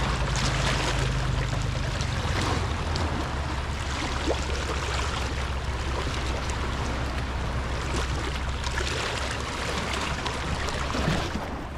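Waves washing on a sandy beach, over a steady low motor hum.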